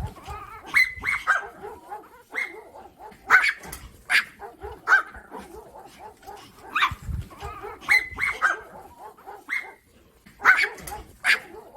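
Chihuahua barking: short, sharp, high-pitched barks, some single and some in quick runs of two or three, at irregular intervals.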